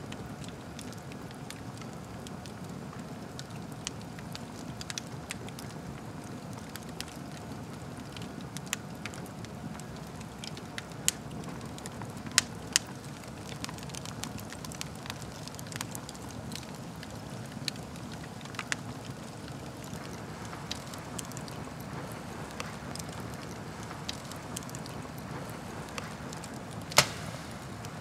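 Wood fire crackling in a fireplace: a steady low hiss of burning logs with scattered sharp pops and snaps, the loudest pop near the end.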